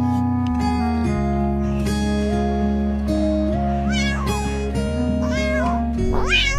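Background music with a steady melody, with a cat meowing three times in the second half, each meow rising and then falling in pitch, the last one the loudest.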